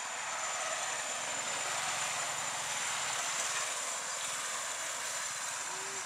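Steady outdoor ambience: a broad hiss that swells slightly over the first second or two, with a constant thin, high-pitched insect whine running through it.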